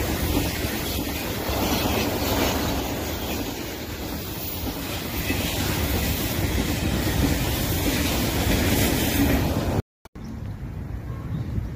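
KTX high-speed train passing close by on its articulated bogies, a steady loud rushing rail noise. About ten seconds in the sound cuts out abruptly, then a quieter rumble resumes.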